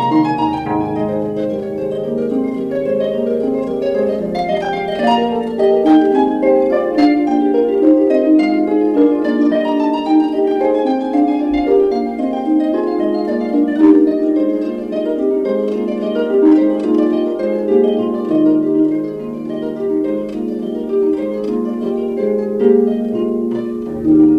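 Background music of quick plucked-string notes, harp-like, running as a steady light melody.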